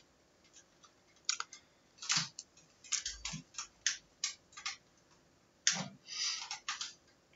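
Irregular light clicks and taps, about a dozen scattered over several seconds, from a computer mouse and keyboard picked up by a desk microphone.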